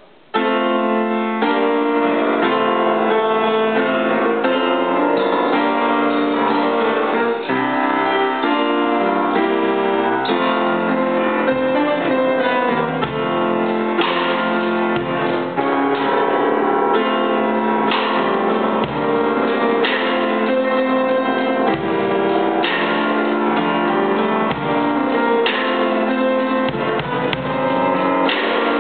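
Upright piano played in full chords, starting abruptly just after the beginning, with a drum kit accompanying, including occasional cymbal crashes and kick-drum thumps.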